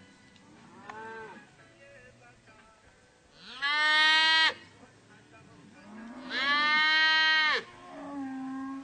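Cattle lowing: two long, loud moos about three and a half and six seconds in, with shorter, quieter calls before and after them.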